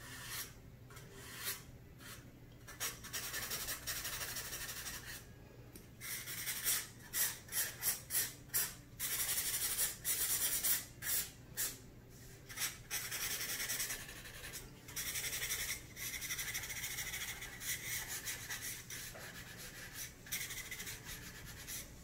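Pencil scratching on drawing paper in back-and-forth shading strokes, faint, with runs of quick hatching at two or three strokes a second in the middle and steadier rubbing near the end.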